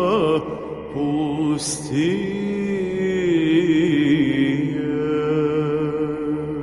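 A man singing a slow Romanian Orthodox spiritual song (pricesnă), drawing out long notes with a slow waver in pitch.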